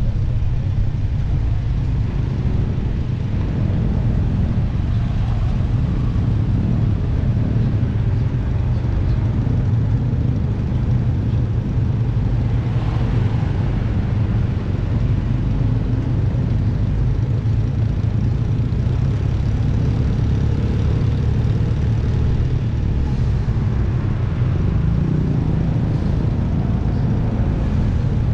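Motorcycle running at low road speed, heard from on board the bike: a steady low rumble.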